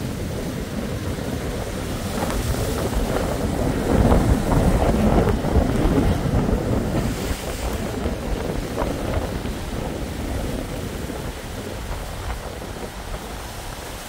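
Storm surf breaking on a claystone rock platform, with gusty wind buffeting the microphone. The noise swells loudest about four to six seconds in, then eases.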